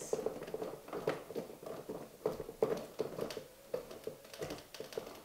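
Thin rubber O-ring being rolled down a highchair's metal leg by hand to sit on top of a wooden footrest: an irregular run of small rubbing taps, several a second.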